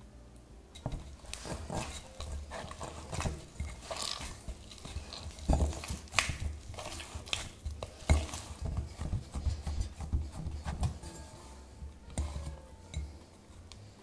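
Hands kneading a soft yeast dough in a glass bowl: irregular squishing and slapping, with dull thuds and knocks as the dough and hands press against the glass. It starts about a second in.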